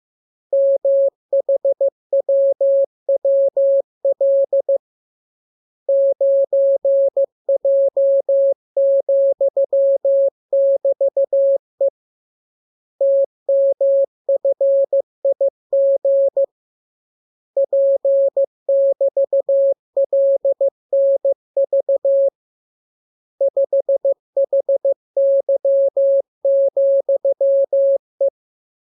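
Morse code (CW) sent as a single steady beep keyed on and off in dots and dashes, in runs of characters separated by pauses of about a second. It is machine-even receiving practice of the lesson's letters.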